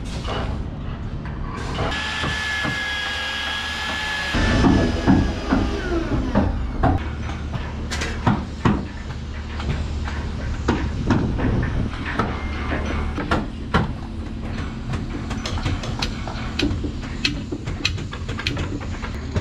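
Irregular sharp knocks of wood being struck as wooden bulwark stanchions are driven into their deck holes and wedged tight. The knocking starts about four seconds in, after a short high whine.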